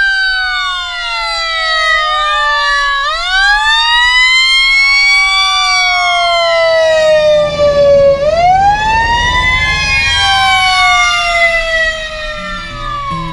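Fire engine siren wailing, with several siren tones overlapping. Each tone falls slowly, then sweeps back up quickly, twice. The truck's engine rumbles underneath in the second half.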